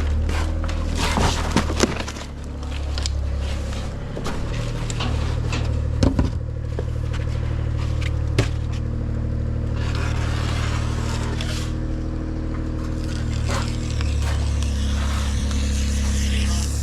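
Steady low hum of a running motor, with scattered scrapes and clicks on top.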